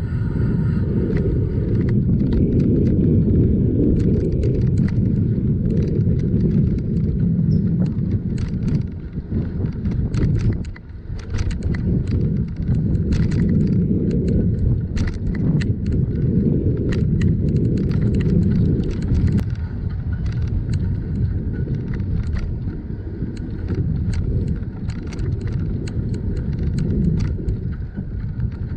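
Steady low rumble of a bicycle rolling along a paved path, heard from the moving bike, with scattered light clicks and rattles; it drops away briefly about ten seconds in.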